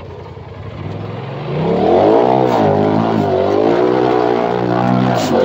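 Side-by-side UTV engine revving hard under load on a steep dirt climb: its pitch and loudness rise sharply about a second and a half in, then waver up and down as the throttle is worked.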